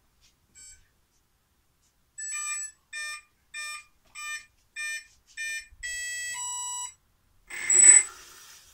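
Electronic power-up beeps from a combat robot's weapon speed controller: six short beeps about two-thirds of a second apart, then two longer steady tones, the second lower. About a second later comes a brief, loud burst of noise with a sharp high whistle.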